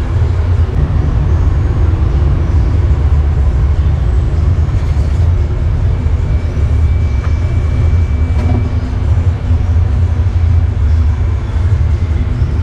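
Steady low rumble of street traffic, with motorbikes passing on the road.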